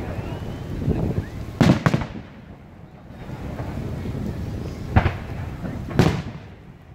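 Aerial firework shells bursting overhead: a close double bang just under two seconds in, then single bangs at about five and six seconds, with low rumbling in between.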